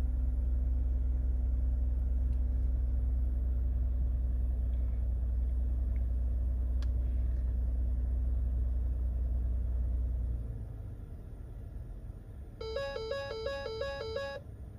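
Ford Taurus engine idling just after a push-button start, heard as a steady low rumble from inside the cabin that eases off about ten seconds in. Near the end a rapid two-tone electronic chime plays for about two seconds.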